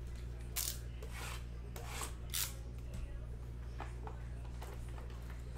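Cellophane and foil wrapping on sports trading card boxes being torn and rustled open: four short tearing rasps in the first half, then fainter rustles, over a steady low electrical hum.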